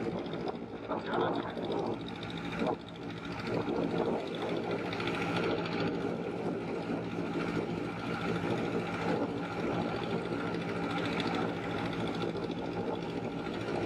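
Engine of a wooden river motorboat running steadily under way, a continuous droning hum.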